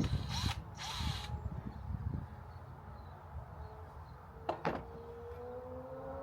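Two short bursts of a power drill, each under half a second, followed a few seconds later by a sharp click.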